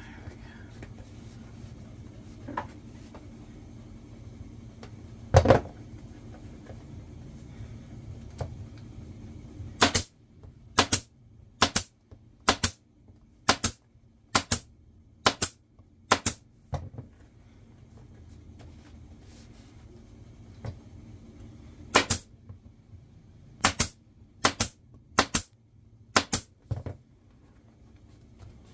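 Pneumatic upholstery staple gun firing staples through a vinyl seat cover into the seat base, one sharp shot at a time a little under a second apart: a run of about eight shots, a pause of several seconds, then about six more. A single knock about five seconds in, before the stapling starts.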